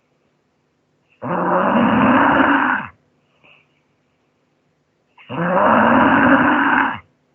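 A person snoring loudly: two long snores about four seconds apart, each lasting nearly two seconds, with a faint short sound in the gap between them.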